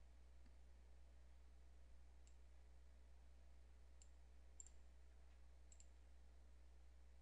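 Near silence with a steady low hum, broken by a few faint, short computer mouse clicks spread over the middle few seconds.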